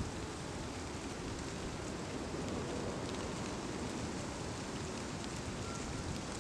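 Steady outdoor background noise, an even hiss with a rough low rumble of wind on the microphone.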